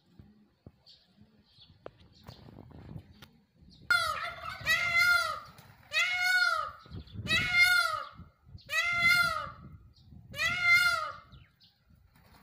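Male Indian peafowl (peacock) calling: about four seconds in, a series of six loud, drawn-out calls begins, repeated roughly every one and a half seconds, each rising and then falling in pitch.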